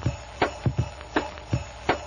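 Instrumental song intro with a steady drum beat: low thumps, with a sharper hit about every three-quarters of a second.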